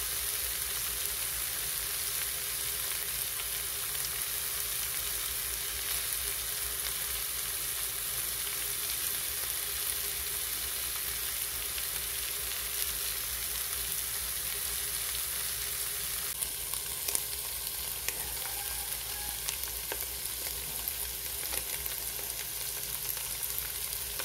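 Catfish pieces frying in oil in a pot over ginger, onion and chili: a steady sizzling hiss. About two-thirds of the way in, sharper pops and crackles start coming through.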